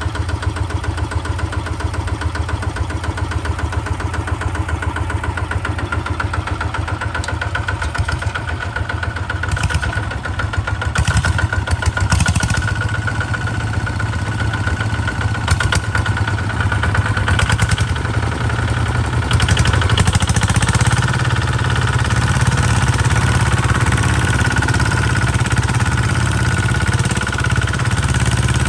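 Two-wheel walking tractors' single-cylinder diesel engines running steadily with a pulsing beat, the front one working under load as it tows the other by a rope. The sound grows louder from about ten seconds in as the nearer tractor comes close.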